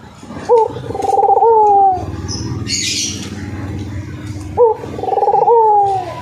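Caged dove cooing twice, each call a short rising note followed by a rolling coo that slides down at the end.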